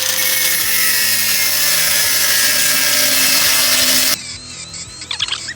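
Angle grinder cutting into a pickup truck's front bumper: a loud, steady grinding hiss with a faint whine that sags slightly under load. It cuts off abruptly about four seconds in.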